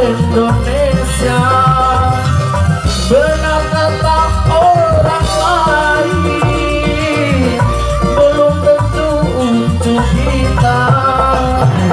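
Live dangdut band playing through a PA: electric guitars and keyboard carry the melody over bass and drums keeping a steady beat.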